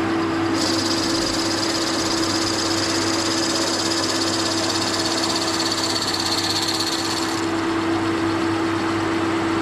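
Metal lathe running with a steady motor hum while a large twist drill, fed from the tailstock, bores into a spinning bushing blank, giving a high hissing cutting noise that stops about seven and a half seconds in as the drill is backed off.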